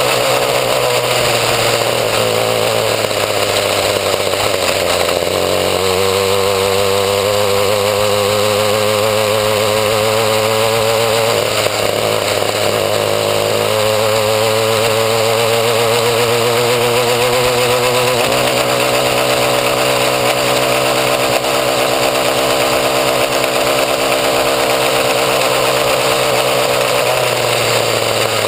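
Small two-stroke weed eater engine driving a homemade motorbike, running loudly and steadily under way, its note shifting several times as the throttle or speed changes.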